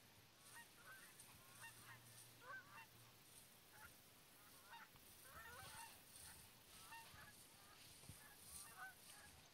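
Faint bird calls: many short calls that glide in pitch, repeated one after another throughout.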